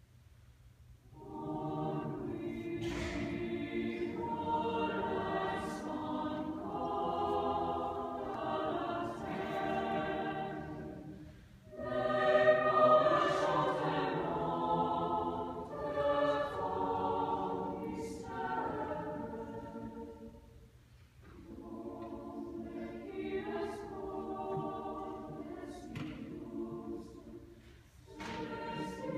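A large mixed choir singing in sustained phrases, with short breaks about 11, 21 and 28 seconds in.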